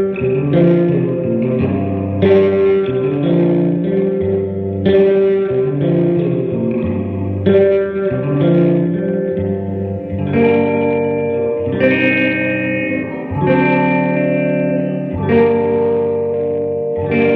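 A 1957 Gibson ES-225TD hollowbody electric guitar, with both P-90 pickups on, played through an Allston guitar amplifier with its reverb turned all the way up. Chords and notes are struck every second or two and left to ring into the reverb.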